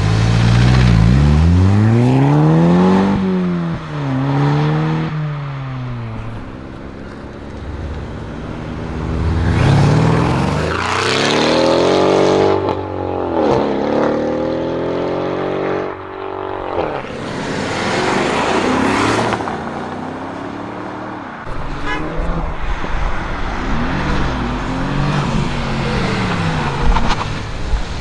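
Mercedes-Benz S63 AMG twin-turbo V8 with a decat exhaust, revving several times, its pitch rising and falling with each rev, with a sharp pop near the end.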